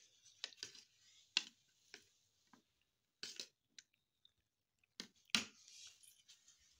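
Eating at a table: a metal spoon clinking and scraping against plates in an irregular string of sharp clicks, with chewing between them.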